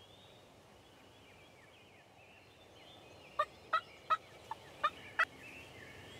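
Wild turkey calling: a series of six short, sharp notes about a third of a second apart, starting about halfway through, over faint background chirping.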